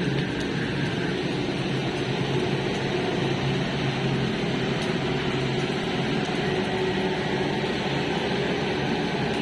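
A steady, unchanging droning noise with a faint low hum running through it.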